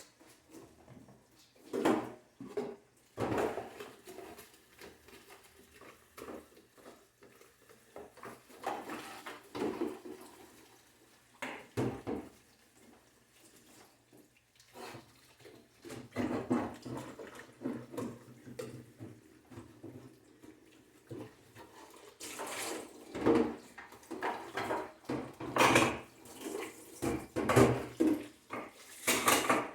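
Dishes, pots and cutlery clattering and knocking irregularly while being washed up at a kitchen sink, with water from the tap running at times; the clatter gets busier in the last third.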